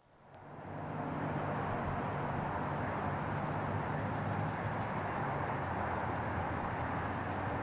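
Steady roar of distant highway traffic rising from the valley below, fading in over the first second.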